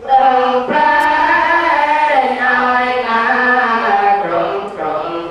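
A congregation of Buddhist laypeople, men's and women's voices together, chanting Pali verses in unison on long, drawn-out notes. The chant starts up just after a breath pause.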